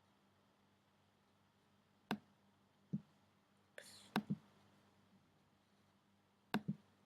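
Computer mouse clicks: single clicks about two and three seconds in, then two quick clicks about four seconds in and two more near the end, with a brief soft rustle just before the middle pair.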